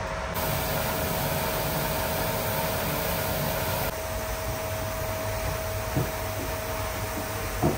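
Steady whir of a commercial kitchen's ventilation fan with a constant hum, and a couple of light knocks in the second half as tubs and bowls are handled.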